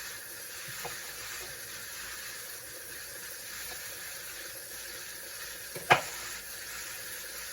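Chicken thighs sizzling steadily as they sear in a hot pan, with one sharp knock a little before the end.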